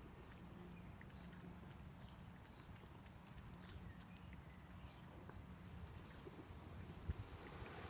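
Faint wet lapping of a cat drinking milk from a plastic tub, soft small clicks from its tongue, with one sharper tap about seven seconds in.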